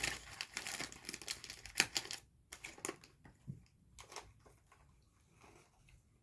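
Close-up crunching of a chocolate-coated almond being chewed: crisp clicks, dense for the first two seconds, then sparser.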